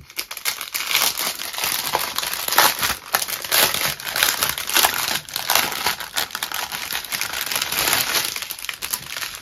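Clear plastic wrapping crinkling and crackling without pause as hands work a strip of diamond-painting drill bags out of it.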